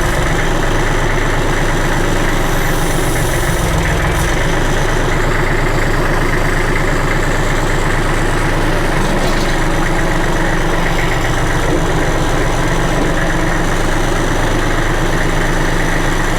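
Backhoe loader's engine idling steadily, with a slight swell in its low rumble about three to four seconds in.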